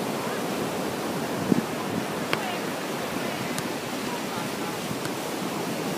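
Steady rushing beach ambience of surf and wind, with faint voices and a couple of brief soft knocks about one and a half and two and a half seconds in.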